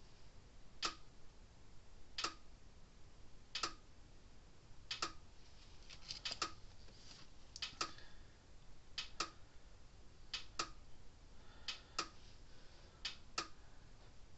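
Sharp clicks repeating about every second and a half, some of them doubled, like an electric fence charger pulsing on the bench, with faint handling noises in between.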